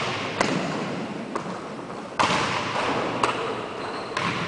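Basketball bouncing on a hardwood gym floor: about five sharp thuds roughly a second apart, each echoing in the large hall.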